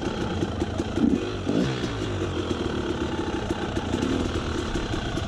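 KTM 300 EXC two-stroke enduro motorcycle engine running at low revs as the bike is ridden slowly to a stop, with a brief rise and fall in engine pitch about a second in, then idling.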